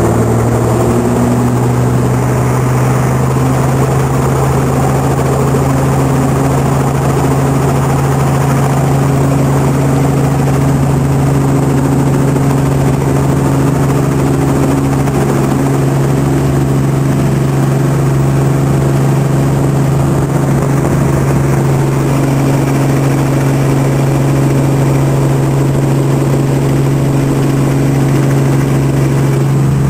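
Helicopter engine and rotor running with a loud, steady drone, heard from inside the cabin as the helicopter lifts off from a grass field and climbs.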